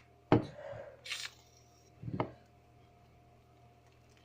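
Homemade glue, shaving-foam and boric-acid slime being squished and worked in a few short wet squelches. A short hiss of shaving foam from the can comes about a second in.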